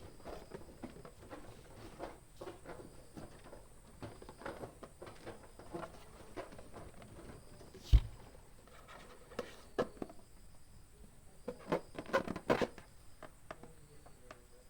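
Balloons and a balloon pump being handled: light rustling and small clicks of rubber and plastic, with one sharp, loud snap about eight seconds in and a flurry of clicks a few seconds later.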